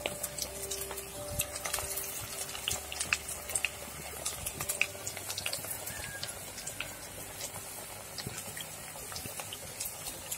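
A fresh batch of batter-coated chicken pakoda deep-frying in hot coconut oil in a cast-iron kadai: a steady sizzle with many small crackles and pops.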